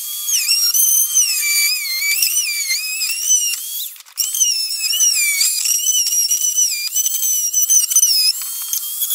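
Handheld Dremel rotary tool cutting a channel into a flat plastic panel: a high-pitched whine whose pitch sags and recovers as the bit bites into the plastic, with a brief break about four seconds in.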